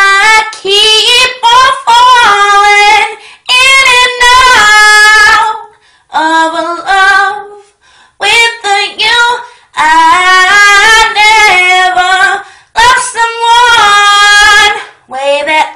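A young woman singing solo with no accompaniment, loud held notes with vibrato, in phrases of two to three seconds broken by short pauses.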